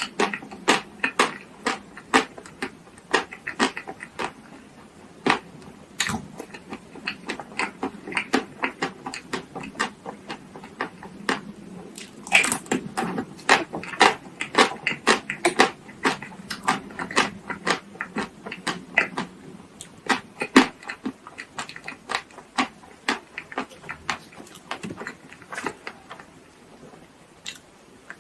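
Close-miked chewing and mouth sounds of someone eating chocolate-coated ice cream bars and marshmallows: many short, irregular clicks and smacks.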